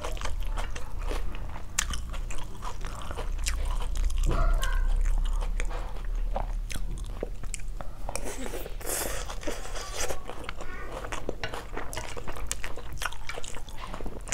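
Close-miked eating sounds: crunchy biting and chewing of chicken salad with sliced raw onion and yellow rice, a steady run of short crisp clicks.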